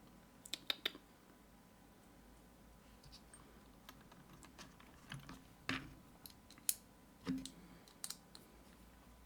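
Scattered light clicks and taps of small metal tools and lock parts being handled while an Abus GDS padlock is taken apart, with a quick run of three clicks near the start and a few more spaced out later.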